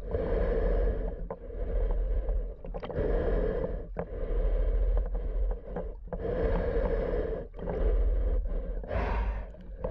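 Muffled rushing and swishing of water heard through an underwater camera housing. It swells and dips in pulses every second or two, with short gaps between them, as the snorkeler moves through the water.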